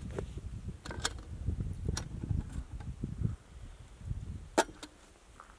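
Small sharp clicks and clinks of camp cooking gear being handled at a little pot, over a low, uneven rumble; the loudest click comes about four and a half seconds in.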